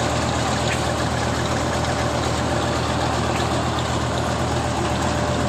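Kubota rice combine harvester's diesel engine idling steadily.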